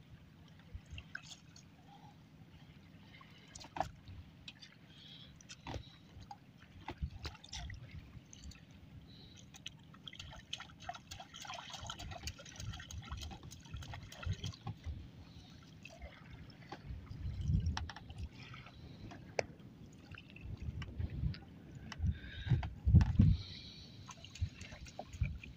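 Wet fishing net being hauled hand over hand into a small wooden boat, water dripping and splashing off the mesh back into the river, with a stretch of heavier splashing about halfway. A few low thumps come in the second half.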